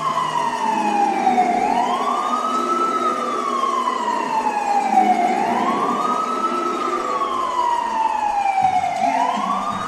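Hockey goal siren wailing in repeated cycles, each rising quickly and then falling slowly, about every four seconds, sounding for a goal.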